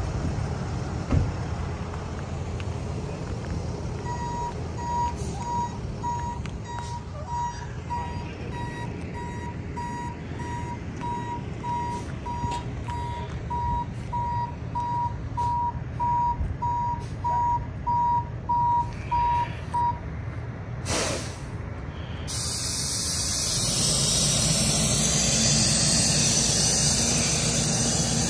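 A vehicle's backup alarm beeps steadily on one high tone for about sixteen seconds, over the low rumble of engines running at the scene. A single sharp knock comes about a second in, and near the end a louder, steadier engine-like noise takes over.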